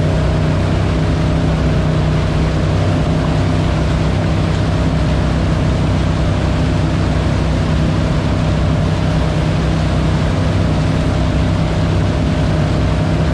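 Wakesurf towboat's inboard engine running steadily under way, a constant low drone with several steady tones, over the rushing wash of its wake.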